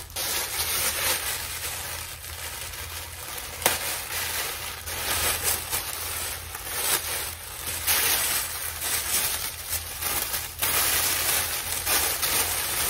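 Plastic mailer bag and clear poly bag crinkling and rustling continuously as a jersey is unwrapped and pulled out, full of small crackles, with one sharper crack about four seconds in.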